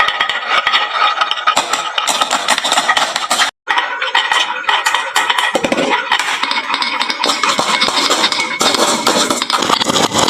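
Many marbles clattering down a wooden marble-run slope and into toy trucks: a dense, continuous rattle of rapid clicks and clinks. The sound cuts out for a moment about three and a half seconds in.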